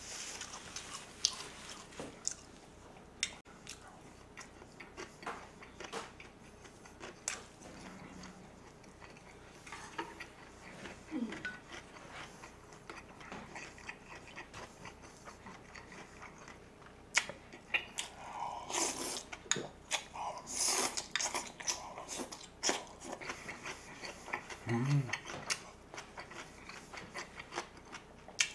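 Close-up eating sounds: chewing gimbap and dongchimi radish, with chopsticks and a spoon clicking against the plate and bowl. A run of louder, noisier chewing or slurping comes about two-thirds of the way through.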